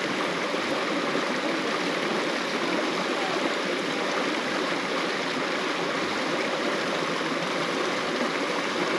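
Creek water running in a steady rush.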